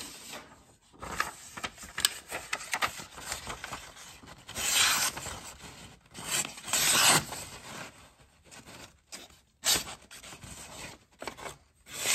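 A sheet of paper being sliced with a large cleaver-style folding knife: rustling and rasping of the paper, with two louder slicing strokes a little before and after the middle, and scattered small clicks.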